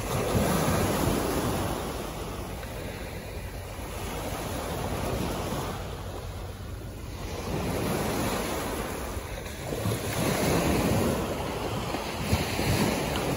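Small waves breaking and washing up a sandy beach, the surf swelling and ebbing several times, with wind rumbling on the microphone.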